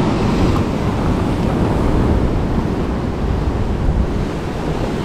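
Ocean surf washing steadily against a coastal rock ledge, with wind rumbling on the microphone.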